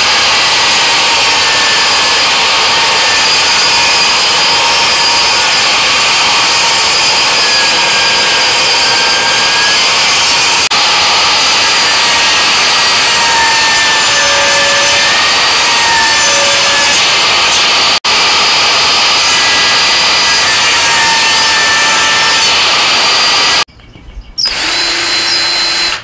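Portable jobsite table saw running and cutting through a hardwood cutting board, trimming off glued-on walnut runners. It is loud and steady, with one sudden break about eighteen seconds in. Near the end it gives way to a quieter, steady whir of a cordless drill.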